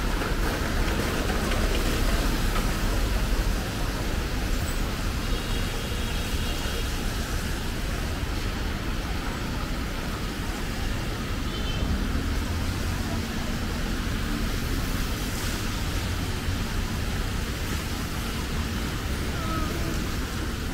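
Steady city street traffic noise: vehicles running along a busy road, with an engine hum passing about twelve seconds in.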